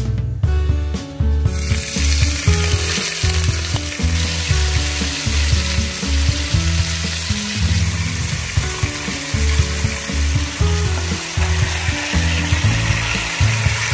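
Pork chops sizzling in hot oil in a non-stick pot. The sizzle starts suddenly about a second and a half in, as the meat goes into the oil, then runs on as a steady loud frying hiss.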